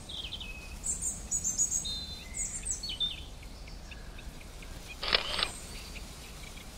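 Wild birds at a wetland feeding area chirping, with high, quick falling notes over the first three seconds, then a short harsh rattle about five seconds in.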